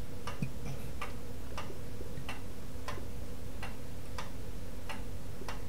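Even, regular ticking, about three ticks every two seconds, over a steady low hum.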